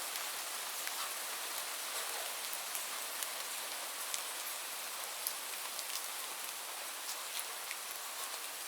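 Steady rain falling, an even hiss with scattered individual drops ticking sharply on a nearby surface.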